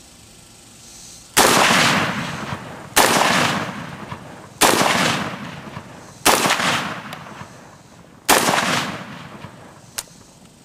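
PTR-91, a .308 semi-automatic HK-91/G3 clone rifle, fired five times in slow succession, about one and a half to two seconds apart. Each report is loud and trails off in a long echo. A short sharp click follows near the end.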